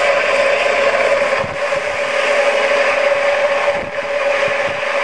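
Small motor of a model helicopter running with a steady whir and one strong humming tone, its rotor spinning; the level dips briefly twice.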